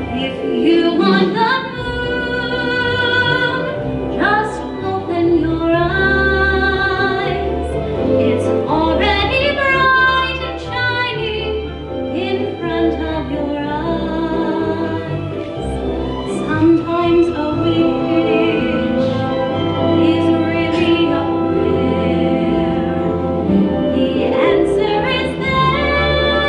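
A young woman singing a slow, sustained song in a trained, operatic style with vibrato, over instrumental accompaniment.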